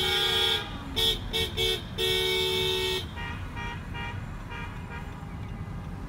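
Two-note car horn honking in a celebratory pattern: a long blast ending about half a second in, three quick toots around one to one and a half seconds, then a second-long blast that stops about three seconds in. Fainter honking goes on after.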